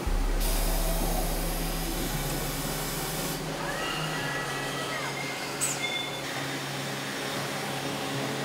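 Factory machinery running with a steady hum. A loud hiss lasts the first few seconds, a brief squeal follows, and a sharp click comes about two-thirds of the way in.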